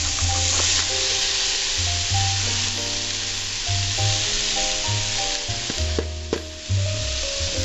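Okra and onions sizzling as they fry in oil in a pan and are stirred, with a couple of sharp knocks about six seconds in.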